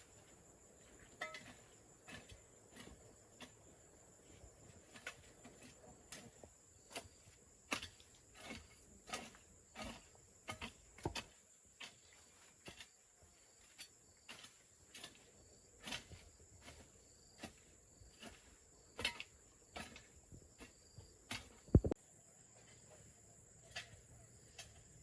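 Irregular light knocks and clicks of hands working with wood and tools, with one sharp, loud knock about 22 seconds in, over a steady high-pitched chorus of crickets.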